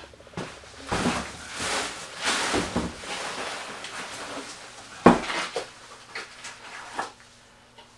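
Workshop handling noise: parts, packaging and a wooden block being picked up and set down on a workbench. It comes as scattered rustles and knocks, the loudest a sharp knock about five seconds in.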